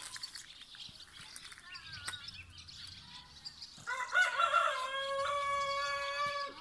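A rooster crows once, starting about four seconds in: a few quick rising notes, then a long held note that cuts off near the end. Small birds chirp faintly before it.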